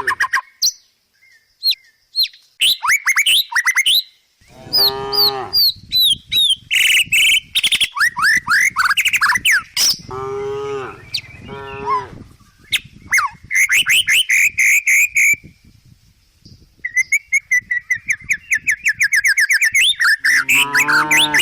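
Cows mooing several times, with a lowing call about four seconds in, two shorter moos around ten seconds, and another starting near the end. Between the moos, birds chirp and twitter in quick runs of sharp, falling notes.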